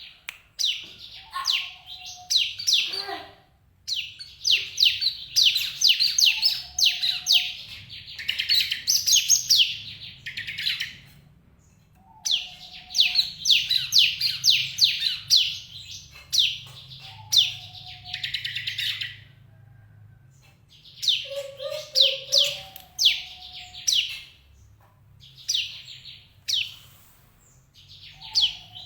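Caged bar-winged prinia (ciblek) calling: rapid runs of high, sharp chirps in bursts of several seconds, with short pauses between them.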